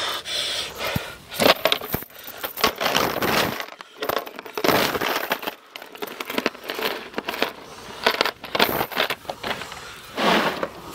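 Metal chain rattling and clinking in irregular bursts as it is lowered into a plastic tub with the caught fish, with knocks of handling against the tub.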